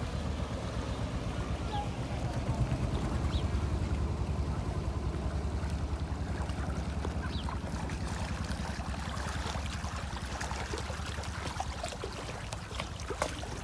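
Engine of a passing wooden river tour boat running steadily, swelling a few seconds in and easing off toward the end, with a duck quacking now and then.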